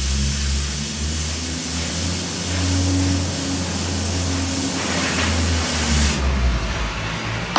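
Oxy-acetylene cutting torch hissing steadily as it cuts through steel, the hiss stopping abruptly about six seconds in, over a low steady hum. A short sharp pop comes right at the end.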